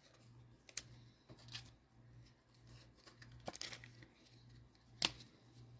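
Cellophane trading-card pack wrappers crinkling and tearing, with sharp clicks of cards being handled; the loudest click comes about five seconds in. A faint low hum runs underneath.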